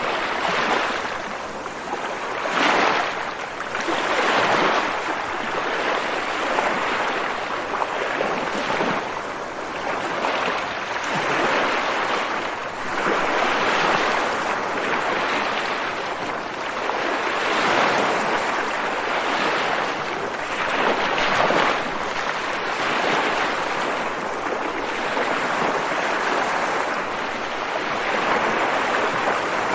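Ocean waves washing in continuously, the wash swelling and easing every two seconds or so.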